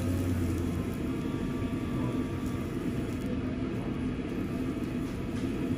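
Steady low rumble of ventilation at a charcoal yakiniku grill, the exhaust draw of the tableside smokeless roaster.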